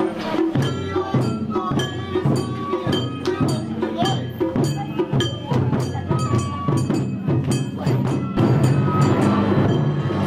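Gion festival taiko drums beaten with sticks in a quick, steady rhythm, with bright ringing tones over the strokes. The sound grows louder and fuller about eight seconds in.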